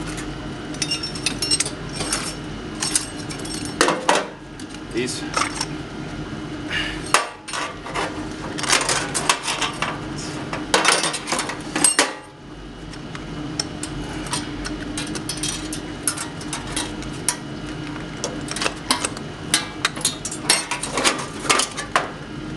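Rusty steel hand tools (pliers, wrenches) and wire clinking and rattling as they are untangled by hand: many light metallic clicks and knocks at irregular intervals, over a steady hum.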